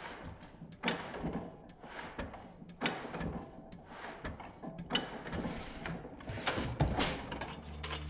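1917 Fuller & Johnson Model N 1.5 horsepower single-cylinder hit-and-miss engine running, heard close at its open crank: a steady clatter of small mechanical clicks with a louder knock about every two seconds.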